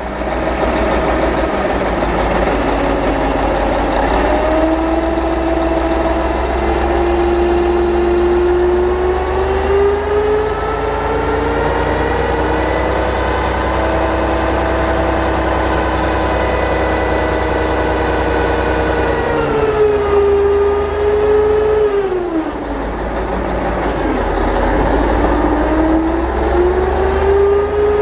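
A vehicle engine running under load, its pitch climbing slowly over the first half, holding, then dropping sharply about two-thirds of the way through before rising again.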